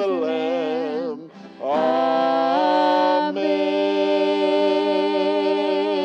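Slow worship song: a man singing long, drawn-out notes over acoustic guitar, with a short break and a rising glide into a held note about a second and a half in.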